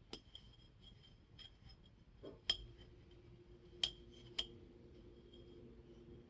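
Small metal tools and nailer parts clinking and tapping against each other on a workbench: a few light, ringing clicks, the loudest about two and a half seconds in and two more near four seconds. A faint steady hum comes in at about the same time as the loudest click.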